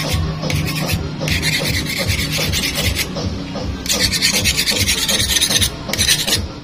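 A knife sawing and scraping through a large eel's thick body, a rasping scrape that comes in stretches of a second or two.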